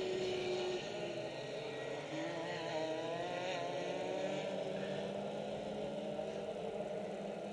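Distant Rotax two-stroke racing kart engines. Several overlapping engine notes rise and fall in pitch as the karts accelerate and lift off around the circuit.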